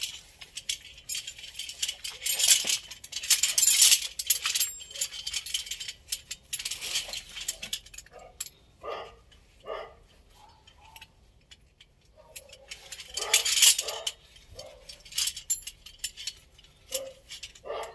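Metal buckles and rings of a climbing harness jangling and clinking as it is put on and adjusted, loudest in two spells a few seconds in and near the end. A dog barks several times in the middle and again near the end.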